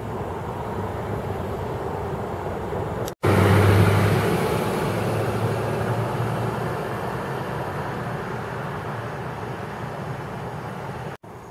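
Road traffic noise. After a cut about three seconds in, a motor vehicle is loud at first and then slowly fades away over several seconds. Before the cut there is a steadier, quieter outdoor noise.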